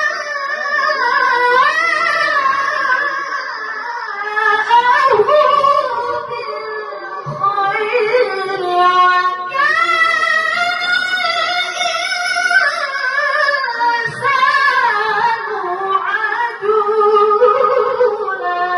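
A woman's solo voice chanting in long, held, melismatic phrases that bend up and down in pitch: the melodious devotional singing of a female Islamic religious teacher (ustadzah).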